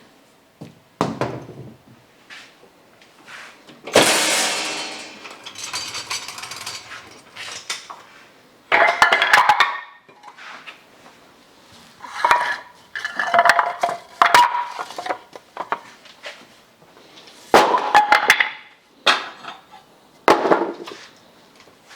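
Heavy steel parts of a lathe and its makeshift lifting rig clanking, knocking and ringing as the machine is shifted and lowered. There are several loud bursts, the biggest a long crash about four seconds in, with ringing metal clatters after it.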